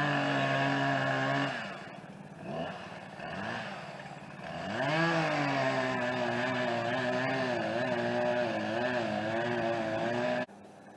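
Chainsaw revving up and cutting the notch in a dead oak tree. It eases off after about a second and a half, revs up again and runs under load with a wavering pitch, then cuts off suddenly near the end.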